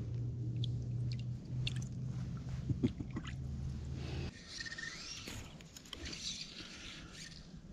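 Close handling noises from an angler's hands with a fish and fly line: small clicks and scrapes over a steady low hum. The hum cuts off abruptly about four seconds in, leaving a quieter hiss with faint rustling.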